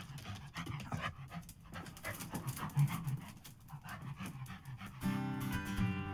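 A dog panting in quick, uneven breaths, with one louder breath near the middle. Acoustic guitar music starts about five seconds in.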